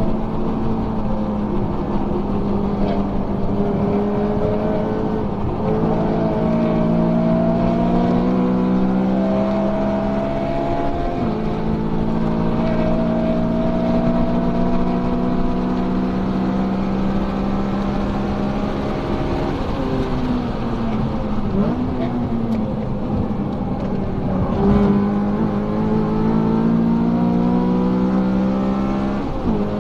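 Honda Civic sedan's four-cylinder engine heard from inside the cabin, pulling hard at high revs around a track. Its pitch holds steady for long stretches and drops and climbs again a few times as the driver shifts and brakes. There is a brief knock about 25 seconds in.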